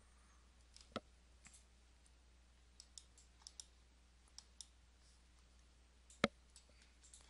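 Scattered computer mouse clicks, about a dozen, the loudest about six seconds in, against near-silent room tone.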